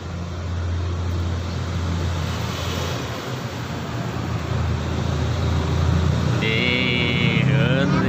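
A vehicle engine running steadily with a low hum, which grows louder over the first second. Near the end there is a brief high-pitched tone, followed by a child's voice.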